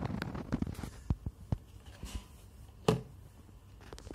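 Close handling noise: a scatter of small clicks and rubbing, mostly in the first second, and one sharper knock a little before three seconds in.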